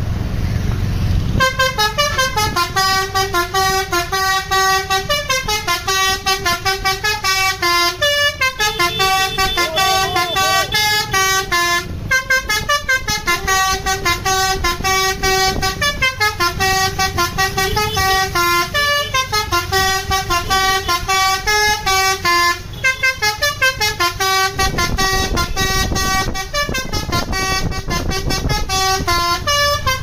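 Basuri telolet musical horn on a tour bus playing a melody of stepping notes with a fast pulsing tone, starting about a second and a half in, over the low rumble of the bus engine.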